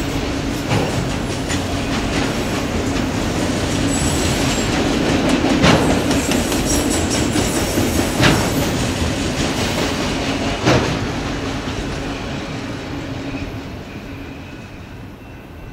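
Autorack freight cars rolling past: a steady rumble of wheels on rail with three sharp wheel clacks, fading away in the last few seconds as the final car goes by.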